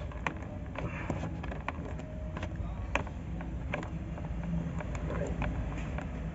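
Scattered light clicks and taps of plastic wiring connectors being handled and pushed onto a washing machine's control board, over a steady low hum.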